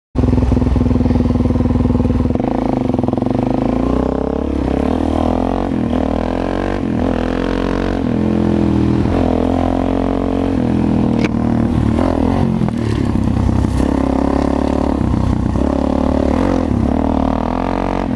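Suzuki DR-Z400SM supermoto's single-cylinder four-stroke engine running under way, its revs rising and falling again and again as it is ridden.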